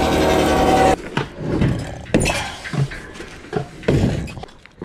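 A steady mechanical hum that cuts off abruptly about a second in, followed by irregular knocks and clinks of wooden posts and a metal gate shifting in a pickup bed.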